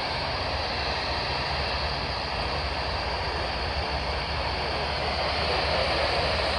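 Steady hiss of open-squelch static from a weather radio receiver with no usable signal, heard while scanning through the weather-band channels.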